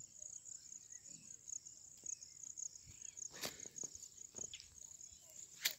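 Insects chirping in a steady, fast, high-pitched pulse, faint throughout. A few sharp clicks stand out, one about three and a half seconds in and one near the end.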